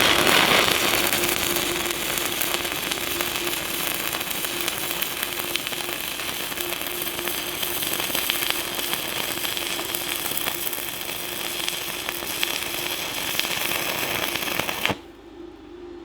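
Stick (MMA) welding arc from a Decapower Ecoarc 160 inverter welder: a continuous dense crackle that burns steadily and cuts off abruptly about fifteen seconds in as the arc is broken.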